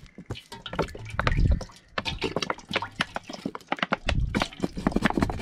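Cooking oil pouring from an upturned plastic bottle into a large metal pot, with many short, irregular splashes and drips.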